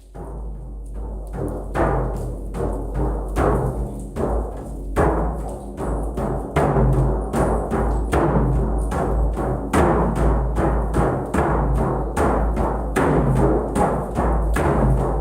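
Deep drums beaten in a repeating rhythm, fading in over the first couple of seconds, the strokes coming closer together from about six seconds in.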